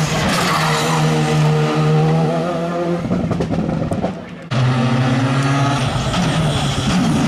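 Skoda Fabia R5 rally cars' turbocharged four-cylinder engines driven at full throttle. The first car's engine note steps through gear changes and fades away; after an abrupt cut about four and a half seconds in, the next car comes in loud, its revs rising and falling.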